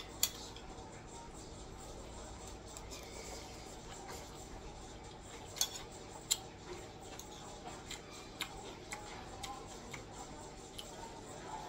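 Metal spoon clinking and scraping against a plate of rice while eating: a few sharp clinks, the loudest two close together about halfway through, over a low steady hum.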